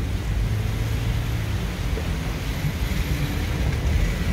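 Steady car-interior noise while driving through heavy rain: low engine and road rumble with a hiss of tyres and rain on the wet road.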